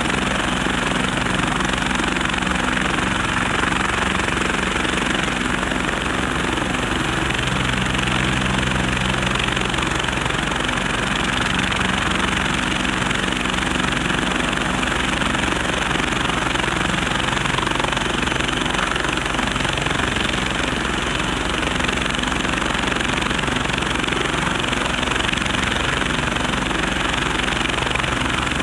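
Bell 430 twin-turbine helicopter running on the ground with its four-blade main rotor turning: a steady turbine rush with a rapid, even rotor beat underneath and a thin high whine over it.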